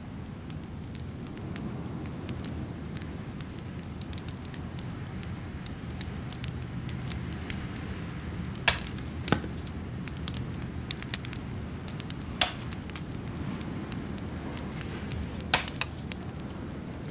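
Open wood fire crackling steadily, with a thin scatter of small snaps and four louder pops spread through the middle and latter part.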